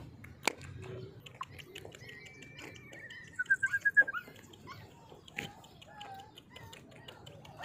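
Faint high-pitched animal calls, with a quick run of about six short chirps a little past halfway, among scattered light clicks.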